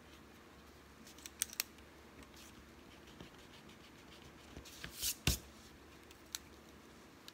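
Pencil drawing and hand-handling noises: a couple of sharp clicks and taps about a second and a half in, then a louder cluster of knocks and rustles around five seconds as a hand moves close to the microphone, and one more click shortly after.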